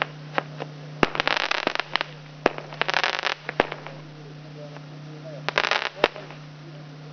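200 g consumer firework cake (a multi-shot repeater with red and green stars and reports) firing: sharp single bangs every second or two, with three short spells of dense crackling.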